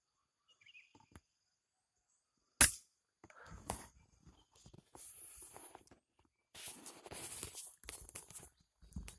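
A single sharp gunshot about two and a half seconds in, followed by rustling and scraping movement noise.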